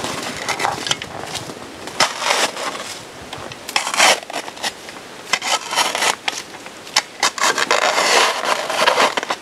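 Shovel scraping and scooping snow off a dirt floor in irregular strokes, some short and sharp, some a second or so long.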